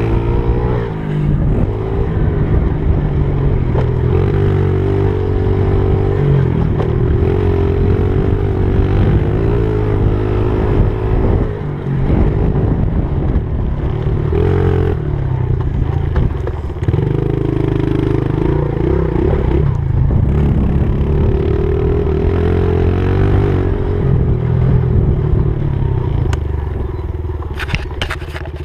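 Honda CRF70 pitbike's small single-cylinder four-stroke engine revving up and down as it is ridden hard around a dirt track, heard close up from the rider's camera. The revs drop briefly a couple of times, and near the end the engine falls away to a lower note, with a few sharp clicks.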